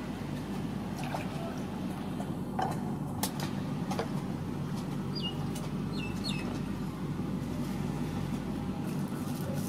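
Steady outdoor background noise with a few light knocks as food is handled on a wooden table, and a bird chirping three short calls, each falling in pitch, around the middle.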